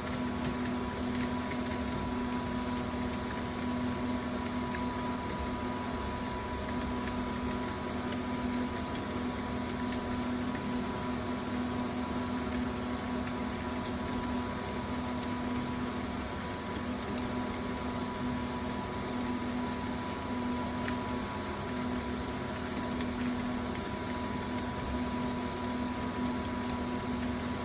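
Steady electrical hum over a constant hiss, with one low tone and a fainter higher tone that hold unchanged throughout; no keystrokes or other distinct events.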